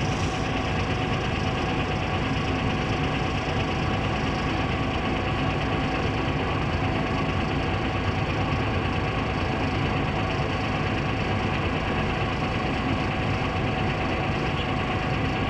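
Heavy excavator's diesel engine running steadily.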